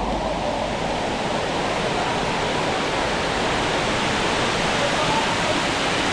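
Cascading water of Dunn's River Falls rushing over rock terraces close by, a steady, dense rush.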